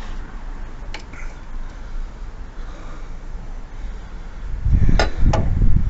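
Handling noise as a bent steel motorcycle rear brake pedal is worked off its pivot shaft by hand, with a light click about a second in. Near the end comes a louder rustling burst with two sharp metallic clicks in quick succession as the pedal comes free.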